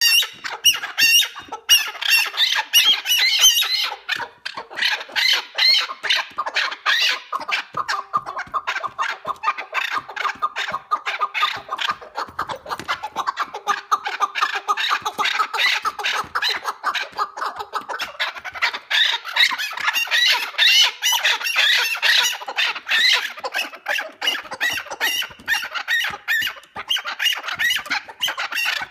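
Chukar partridge calling, a continuous run of quick, repeated chuck notes.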